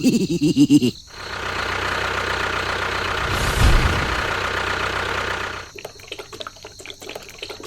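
A vehicle engine running steadily for a few seconds, then a run of rapid rattling clicks.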